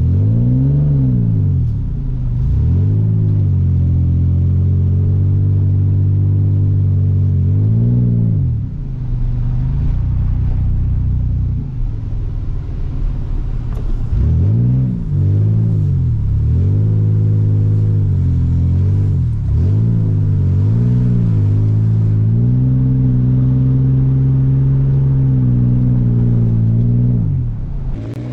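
Toyota Tacoma pickup's engine, heard inside the cab, repeatedly revving up and dropping back as the truck is driven sliding on snow, with steadier stretches between the revs.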